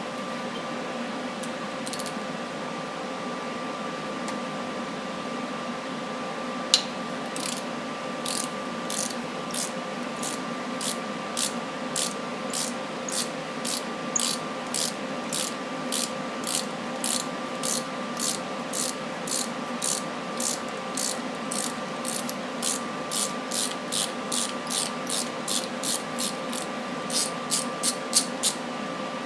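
Ratchet wrench clicking at about two clicks a second as a seized exhaust stud, with a nut welded to its end, is backed out of the cylinder head. The ratcheting starts after one sharp click about a quarter of the way in and quickens into a short flurry near the end, over a steady hum from a shop fan or air conditioner.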